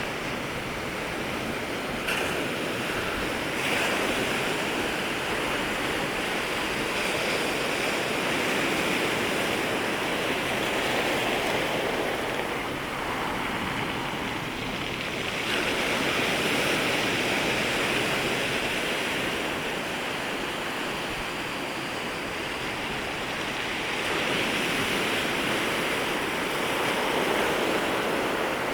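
Sea waves breaking and washing on the shore at the water's edge, a continuous surf that swells and eases every few seconds as waves come in from different directions and overlap.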